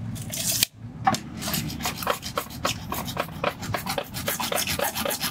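Hacksaw cutting through 1.5-inch PVC pipe: quick, even back-and-forth rasping strokes, several a second, after a brief break less than a second in.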